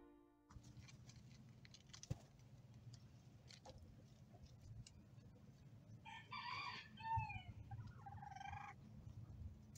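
A rooster crowing faintly: one multi-part crow beginning about six seconds in and lasting under three seconds, over quiet rustling with a few soft clicks.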